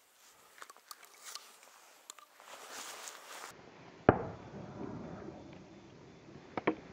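Footsteps crunching on stony ground. Then a steady low wind rumble on the microphone, one sharp loud thump about four seconds in, and two quick knocks near the end.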